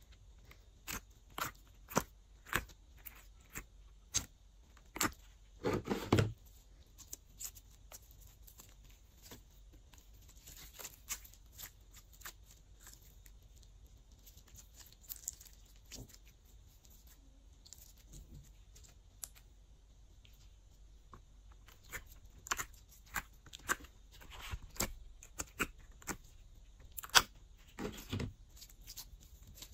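Glossy slime handled by hand: peeled out of a silicone mold, stretched and squeezed, making many small sticky clicks and pops. The clicks are thickest in the first few seconds, with a louder cluster about six seconds in. They thin out in the middle and come thick again near the end as the slime is squished.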